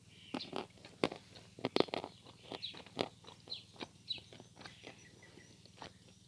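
Natural chalk being bitten and chewed close to the microphone: a quick series of sharp, dry crunches, loudest about two seconds in, thinning out towards the end. Birds chirp in the background.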